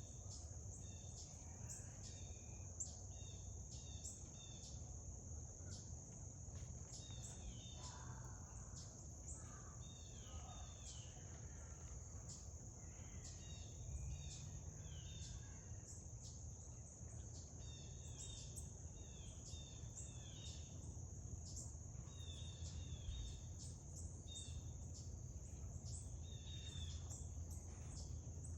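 Outdoor ambience: a steady, high-pitched insect drone, with frequent short bird chirps and scattered sharp clicks or taps.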